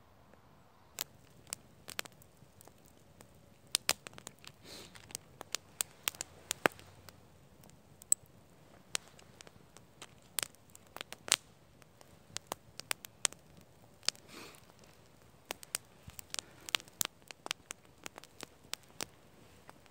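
Small wood campfire crackling, with sharp irregular pops that begin about a second in, and a couple of brief soft hisses.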